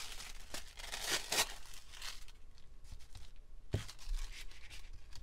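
Thin decoupage tissue paper rustling and crinkling as it is handled and laid down, busiest in the first two seconds. About two-thirds of the way through there is a single sharp tap.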